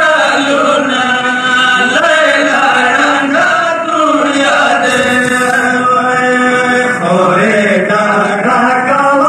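A man chanting a religious recitation in a drawn-out sung style, the voice holding long wavering notes.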